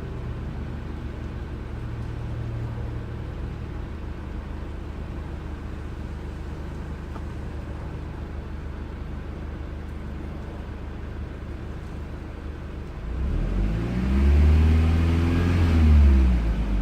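Misfiring car engine idling steadily, then revved up once and let fall back about three seconds before the end.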